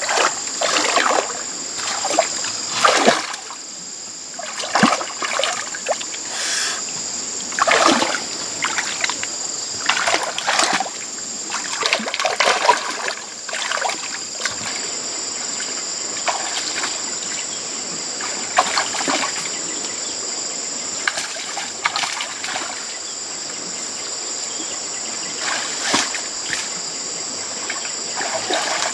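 Hands splashing and sloshing irregularly through shallow muddy water while groping in the mud, busiest in the first half and sparser later, with a steady high insect buzz behind.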